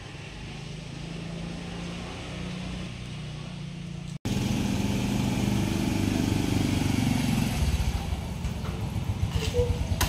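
Small underbone motorbike engine: a steady low hum at first, then much louder after a sudden cut about four seconds in as the bike rolls up, settling near the end into a low, pulsing idle.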